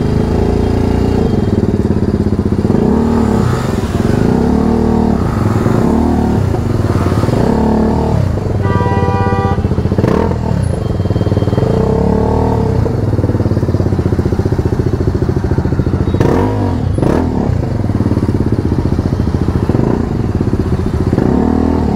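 BMW G310RR's single-cylinder engine under way in stop-and-go traffic, revving up and easing off again and again. A brief high tone of several pitches sounds about nine seconds in.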